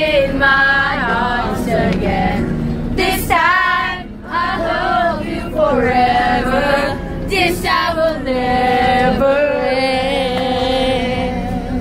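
A group of young voices singing together, a woman's voice loudest, with long held notes near the end.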